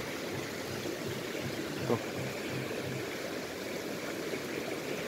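Shallow river running over rocks, a steady rushing flow, with a single short knock about two seconds in.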